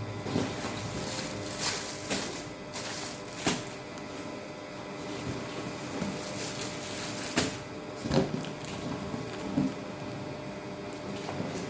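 Handling noises as things are unpacked: irregular knocks and clicks over rustling, with the sharpest knocks a few seconds in and again about two-thirds of the way through.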